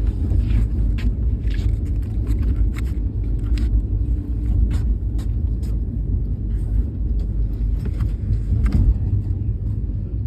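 Steady low rumble of a moving passenger train heard from inside the coach, with scattered irregular clicks and knocks over it.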